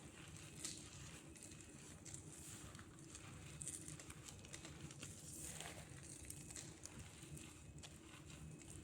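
Quiet, irregular crunching and crackling of dry cornstarch crumbs being crushed, soft crisp crunches following one another unevenly.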